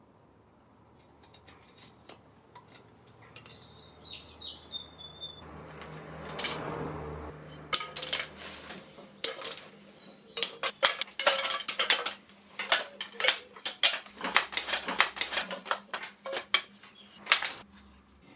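Wooden spoons dropped one after another into a wicker basket, clattering against each other in many sharp knocks that come thick and fast through the second half.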